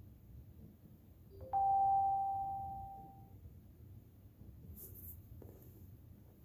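A short electronic alert chime from the smartphone running the Alexa app: a brief low note, then a higher tone that rings and fades away over about two seconds. The chime comes as the app switches to its warning screen for the connected Echo Auto.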